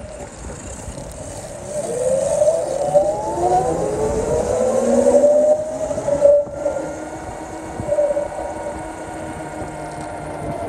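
Emergency vehicle siren wailing over street traffic noise: its pitch climbs about two seconds in, then holds a wavering high tone.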